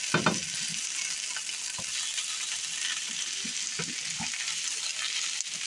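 Sliced potatoes and onions sizzling in a frying pan while a spatula stirs them, scraping and knocking against the pan now and then.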